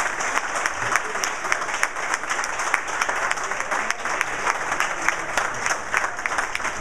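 A roomful of people applauding: many hands clapping in a dense, steady patter.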